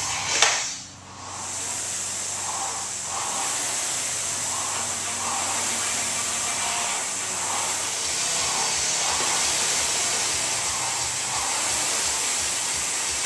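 Concept2 rowing machine's air-resistance flywheel whooshing steadily under hard rowing, with a soft pulse on each stroke.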